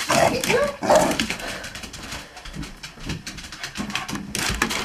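A dog vocalizing excitedly in play, with a few short rising and falling calls in the first second, then scuffling and clicking noises.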